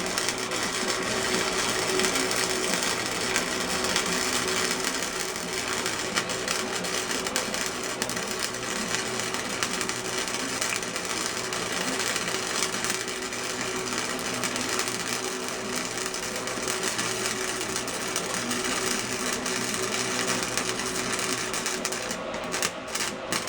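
Flux-core wire-feed welder laying a continuous bead: a steady, dense crackle of the arc. Near the end the arc stops and restarts in a few short bursts.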